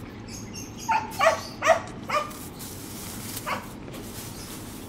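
A dog barking: four short barks in quick succession in the first couple of seconds, then one more about three and a half seconds in.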